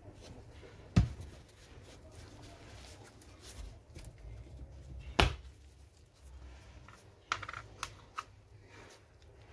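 Handling noise of a shopping-trolley wheel being fitted onto its axle: two sharp clicks about a second in and about five seconds in, then a few lighter clicks near the end, over quiet rustling.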